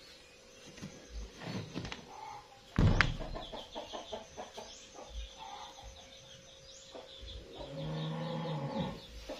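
Chickens calling, with quick high chirps and a longer drawn-out call near the end. A sharp knock about three seconds in is the loudest sound.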